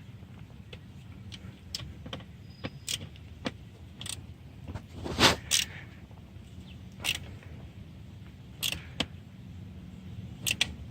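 Irregular metallic clinks and knocks of a 1/2 inch wrench on the Can-Am Spyder F3's fender bracket bolts as they are checked and tightened, with the loudest pair of knocks about halfway through.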